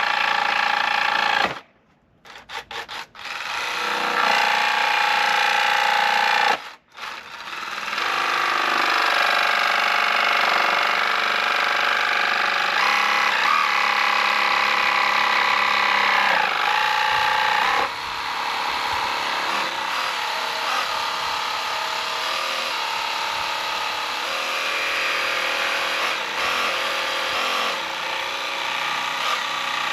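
Power tool cutting a Milwaukee Packout mounting plate down to size, its motor whining with the pitch shifting under load. It stops briefly about two seconds in and again near seven seconds, then runs on, a little quieter after about eighteen seconds.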